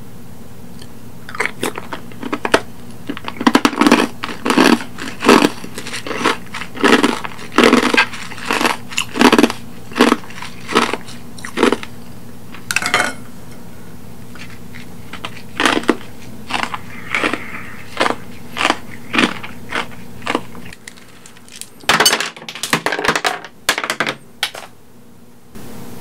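Close-miked chewing with a steady run of loud chews, nearly two a second, that thins out to scattered chews about halfway through. Near the end comes a quick cluster of sharp clicks and crunches.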